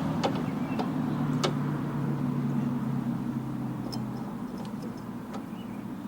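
A steady low engine-like hum that fades away over the last couple of seconds, with a few light, sharp clicks of parts being handled.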